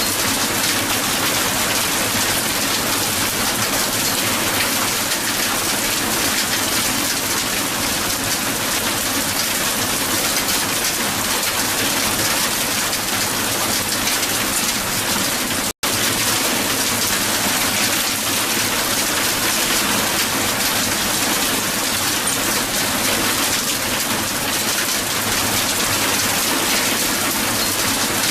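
Hail falling steadily and heavily onto hard ground, a dense even patter of many small ice impacts. The sound cuts out for an instant about halfway through, then resumes unchanged.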